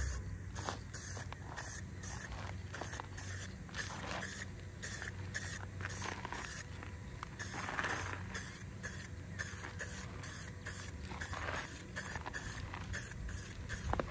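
Aerosol spray-paint can fired through a clip-on trigger handle, hissing in many short bursts as paint is laid on a masked alloy wheel.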